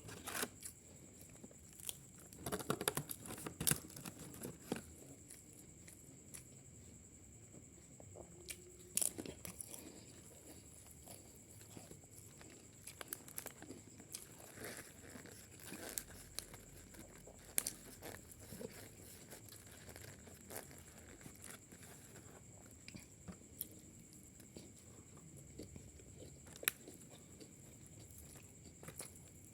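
A person eating: chewing and biting food, with scattered crunches and small clicks, the loudest about 3 to 4 seconds in and again about 9 seconds in. A faint steady high whine lies under it.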